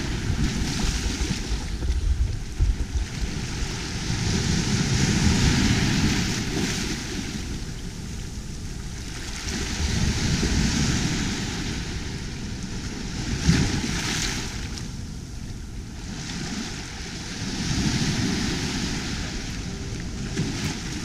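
Small waves breaking and washing up over the shallow water's edge of a sandy beach, swelling and fading every few seconds, with one sharper splash about two-thirds of the way through.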